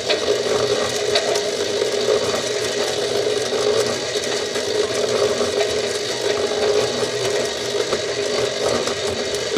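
Battery-powered toy washing machine on its spin cycle: the small motor turns the drum with a steady whir and a light rattle.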